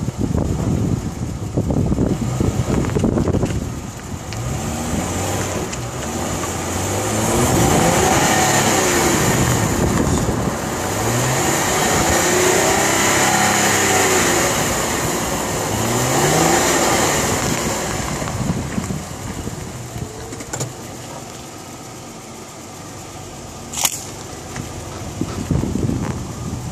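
Isuzu Rodeo engine running, its pitch rising and falling about three times, with a steady high-pitched whine over it whose cause the owner does not know.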